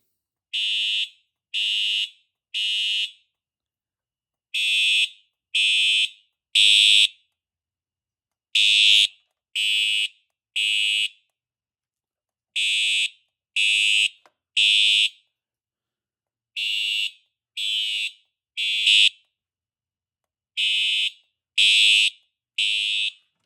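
Siemens UMHU-MCS fire alarm horn strobe sounding its horn in the code 3 (temporal-3) evacuation pattern. Three short blasts, a pause, then three more, repeated six times.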